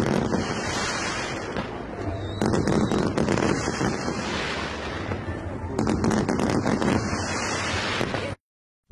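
Fireworks going off: aerial shells bursting with crackle over a steady rushing noise, louder surges about every two and a half seconds. The sound cuts off suddenly near the end.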